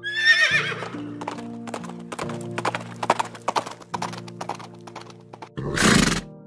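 A horse whinnying once with a falling, wavering call, then hooves clip-clopping in a quick, uneven series of knocks over background music, with a loud short burst of noise near the end.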